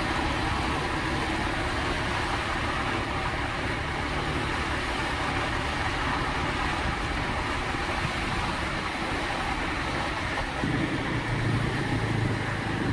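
Steady road and wind noise from riding on a moving two-wheeler, with the motor's low hum underneath. About eleven seconds in, a lower drone grows louder.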